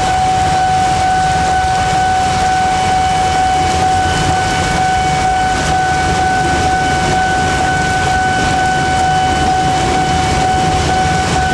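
Railway level-crossing warning signal sounding one steady, unbroken tone over the hiss of heavy rain and the low rumble of a slow-moving train.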